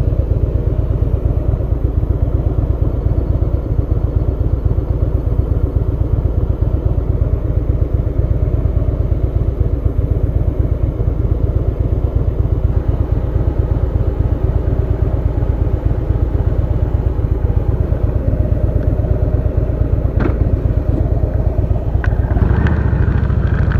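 Harley-Davidson V-twin motorcycle engine running under way, a steady loud rumble of firing pulses, shifting in pitch near the end.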